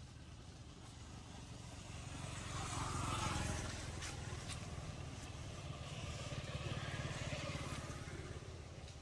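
A motor vehicle's engine running, growing louder to a peak about three seconds in, easing off, then swelling again around seven seconds.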